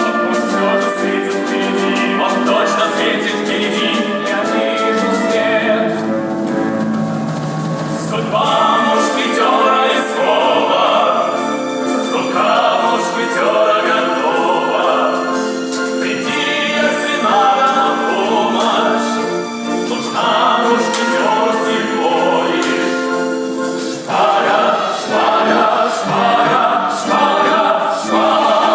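Music: a group of voices singing over sustained chords, the singing coming in short phrases from about nine seconds in.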